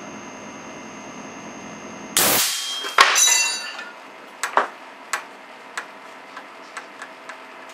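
Fire-extinguisher-tank, solenoid-valve air cannon firing a .410 cast lead slug: a loud blast of air about two seconds in, then a sharp metallic clang with ringing as the slug strikes the steel backstop. A scattering of small clicks and rattles follows.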